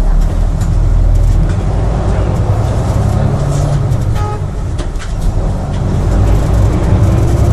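City bus engine running while the bus is under way, heard from inside the cabin as a steady low drone. A short, high tone sounds briefly about four seconds in, and a faint whine rises near the end as the bus pulls.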